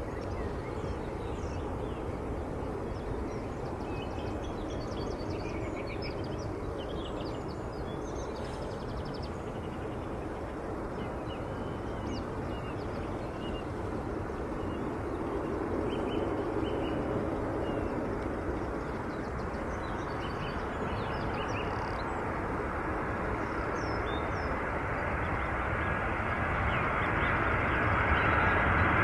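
Jet airliner engine noise slowly building as the aircraft approaches to land, loudest near the end. Small birds chirp over it through much of the first two-thirds.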